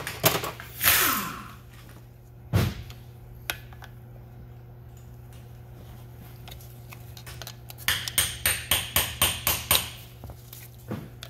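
A small screwdriver working the upper mechanical seal of a Flygt 3152 pump down over the shaft into its holder, metal on metal. There is a single knock a couple of seconds in, then a quick run of about ten sharp taps near the end as the seal is pushed in.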